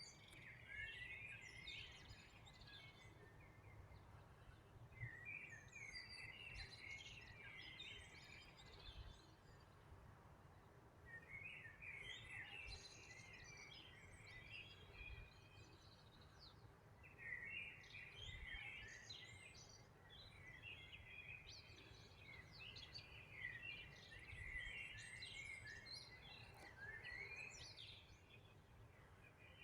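Faint songbird chirping, in bursts of quick twittering notes a few seconds long with pauses between, over a low steady rumble.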